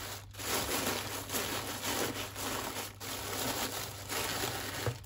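Tissue paper rustling and crinkling as hands smooth it and tuck it into a cardboard mailer box, the rustle rising and falling unevenly.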